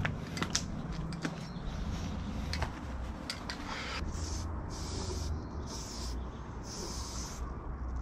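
Footsteps and scuffing on a dirt trail for the first few seconds, then an aerosol spray-paint can hissing in three short bursts about a second apart, the last one the longest.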